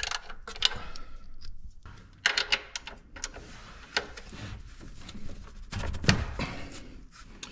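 Hand ratchet and socket clicking in short, irregular runs, with metal clinks, as a 17 mm oil drain plug is loosened.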